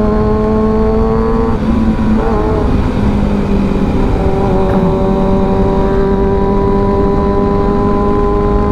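Kawasaki ZX6R inline-four engine running at steady riding revs under heavy wind rush on the helmet microphone. Its note climbs slightly, breaks off briefly about a second and a half in, then settles back to a steady pitch.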